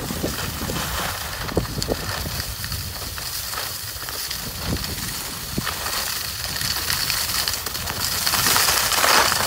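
Skis sliding over groomed, packed snow with a steady hiss, under the rumble of wind buffeting the microphone. It grows louder near the end as the skier picks up speed.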